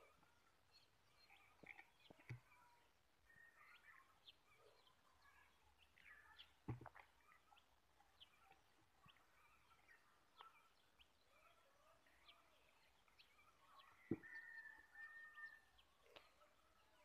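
Faint rural ambience of scattered small birds chirping and calling, with one longer held call about fourteen seconds in. Two or three brief soft knocks stand out, near seven and fourteen seconds in.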